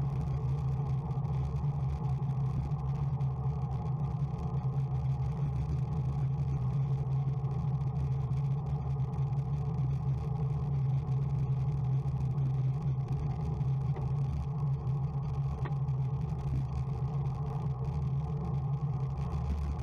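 Steady low rumble of wind and road noise on a moving camera's microphone, without a break or change throughout.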